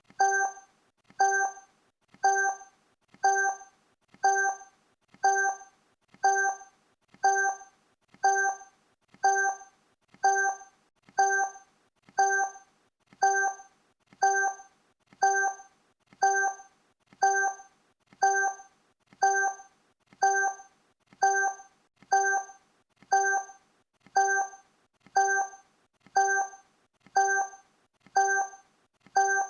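Countdown timer's sound effect: a short pitched blip that starts sharply and fades quickly, repeated evenly once a second, marking each second as it counts down.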